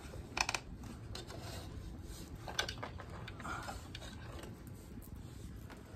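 Plastic grille clicking and knocking against a 5th-gen Camaro's plastic bumper cover as a ZL1 1LE-style grille is pressed into place by hand, its tabs clicking into their spots. A quick run of sharp clicks comes about half a second in, then a few scattered clicks and soft rustles.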